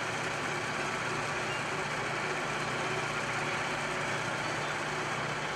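Eurocopter Écureuil helicopter running on the ground after landing, its turbine and rotor giving a steady drone with a constant low hum.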